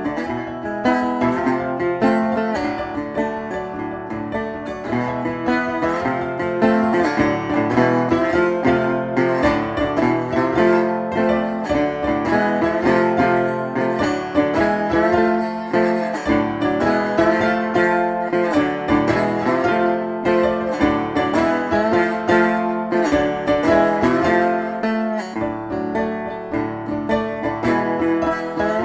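Background music played on plucked string instruments, guitar-led, with quick notes.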